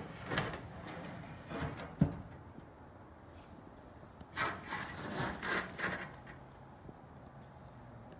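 Handling noises around a Cessna lower cowl fairing on a concrete floor: bursts of rubbing and scraping, a sharp knock about two seconds in, and a run of scrapes about halfway through.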